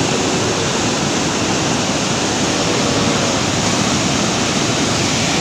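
River rapids: fast, muddy water rushing over rocks in a loud, steady rush.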